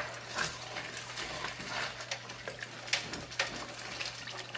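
Water sloshing in a sink, with irregular sharp clicks of clay pebbles knocking together as hands pull a hydroponic planter's roots and pebbles apart.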